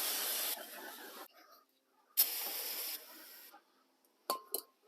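Aerosol brake cleaner sprayed in two bursts of hissing onto a brake caliper to wash off brake dust, the first lasting about a second and a half, the second starting about two seconds in. A couple of short clicks come near the end.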